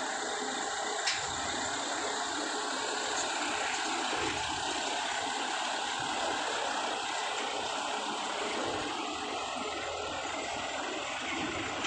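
A bus engine running as a medium-size bus drives slowly up a ferry's steel loading ramp, over a steady even wash of noise.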